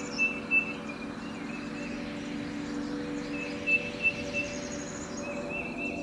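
Ambient nature-sounds soundtrack: a steady sustained drone with two brief clusters of bird chirps, one just after the start and one about four seconds in, and high pulsing insect-like trills.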